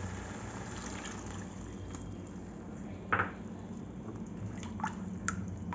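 Water being poured into a kadhai of hot fried onion and spice masala, a soft, steady liquid sound, with one short, louder sound about three seconds in.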